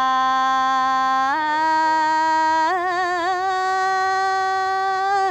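A woman singing unaccompanied: one long, drawn-out note that steps up in pitch about a second in and wavers with vibrato a little later. It is the opening call of a Southern Vietnamese hò folk song.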